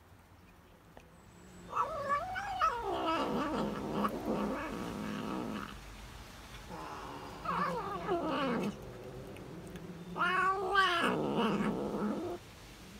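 Tabby cat vocalizing while it eats, making three long, wavering, moaning calls; the middle call falls in pitch.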